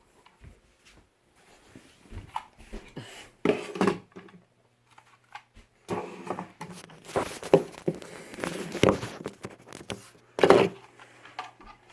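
A child's mouth sounds imitating a remote-control car: irregular buzzing and whooshing bursts, one briefly a few seconds in and then a longer run in the second half, over a steady low hum.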